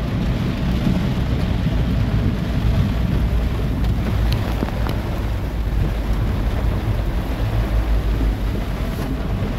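Rain and road noise inside a moving car: a steady low rumble with an even hiss of rain on the body and glass, and a few faint ticks of drops.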